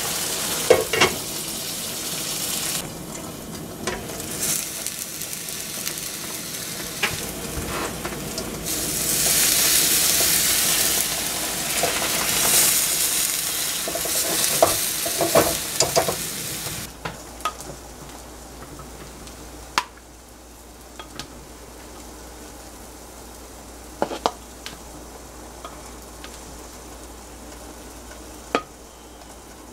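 Eggs frying in oil in a large pan, with loud sizzling and spitting crackles. A spatula knocks and scrapes in the pan. About halfway through the sizzle drops away, leaving a quieter background with a few sharp clicks.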